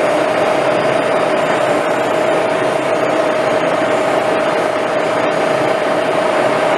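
Axelson engine lathe running with a grinder motor mounted on its carriage, a steady machine noise with a constant whine, while the jaws of a 3-jaw chuck are ground.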